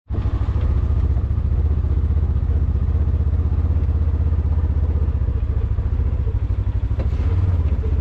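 A vehicle engine running steadily with a fast, even low throb, heard close up from inside the vehicle as it moves slowly.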